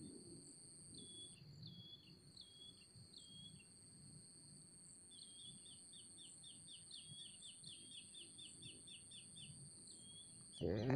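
Faint outdoor ambience: a small bird repeating short downward chirps, a few spaced ones and then a quicker run of about four a second, over a steady high-pitched buzz of insects. A brief louder sound comes just before the end.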